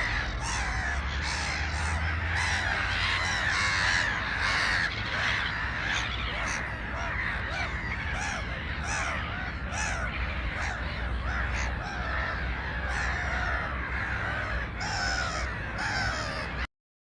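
A flock of birds calling together: many short, harsh calls overlapping continuously over a low background rumble, cutting off suddenly near the end.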